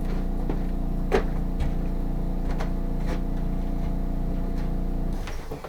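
Steady electric motor hum with a few light clicks over it, cutting off about five seconds in.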